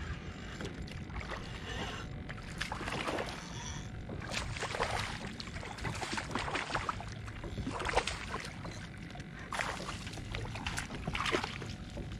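Water splashing and sloshing beside a fishing kayak in irregular surges, while a hooked red drum is fought up to the boat.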